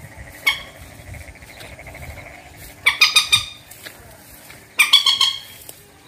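Common moorhen calling: one short call about half a second in, then two loud bursts of rapid, harsh notes, at about three and about five seconds.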